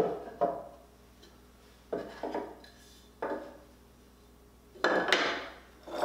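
Short wooden pieces knocked together and set down on a wooden workbench: a series of separate clacks, with a longer, loudest clatter about five seconds in.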